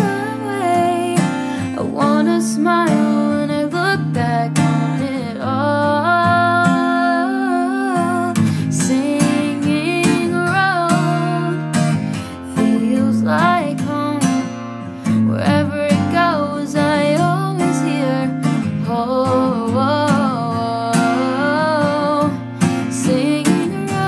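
Background music: a song with strummed acoustic guitar and a singing voice.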